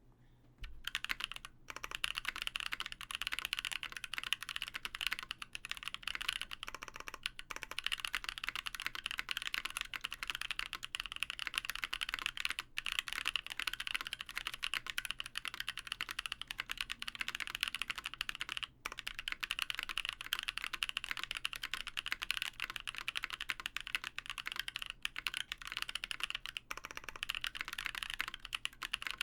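Steady, fast typing on a custom mechanical keyboard with lubed Gazzew Boba U4T tactile switches (lubed with Krytox 205g0, legs left dry), a polycarbonate plate, case foam and GMK Dracula keycaps, giving a dense run of muted "thocky" key clacks. It starts about a second in, with a few brief pauses.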